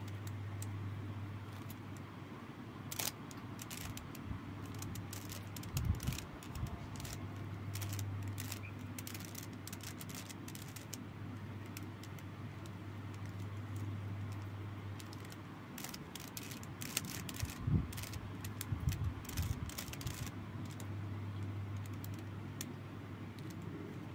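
Plastic 3x3 speedcube being turned by hand a few moves at a time: scattered clicks and clacks of the layers in short clusters, with a few dull thumps, over a steady low hum.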